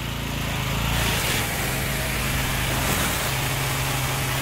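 Honda-engined petrol pressure washer with a Tomahawk pump running steadily, its engine hum under the hiss of the high-pressure water jet rinsing a car.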